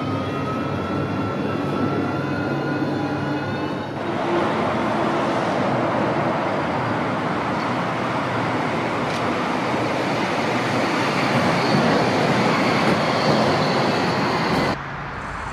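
Five-section low-floor Glattalbahn tram. For the first four seconds it is heard from inside, with the motor whine rising steadily in pitch as the tram picks up speed. Then the running noise of a tram approaching on a curved elevated track grows louder as it passes close by, and stops abruptly near the end.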